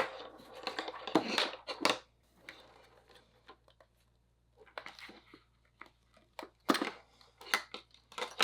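Small 3D-printed plastic aquarium filter parts being handled and fitted together by hand: several sharp plastic clicks with rustling and scraping between them, quiet for a moment in the middle.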